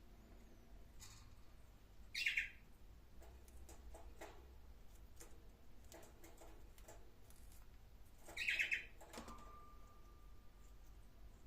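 A bird gives two short trilled calls about six seconds apart, with faint scattered clicking between them.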